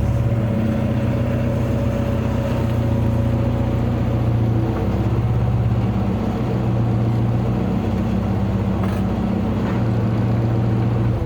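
An engine running steadily with a low, even drone, starting abruptly just before and holding at the same level throughout.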